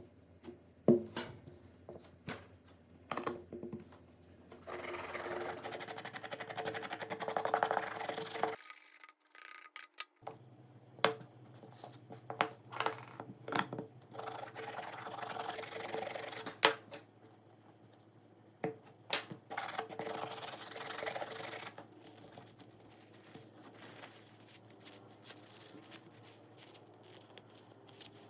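Hand rubbing and scraping on a small hard part of an old phone, in spells of rasping strokes a few seconds long, broken up by clicks and taps as parts are handled.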